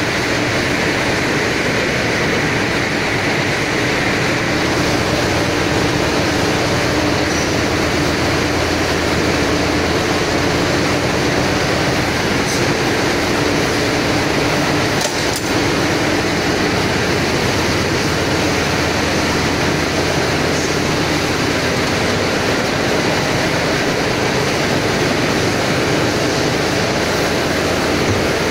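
Cotton comber machinery running in a spinning mill, making a loud, steady mechanical din that holds unchanged. A couple of light clicks sound about halfway through.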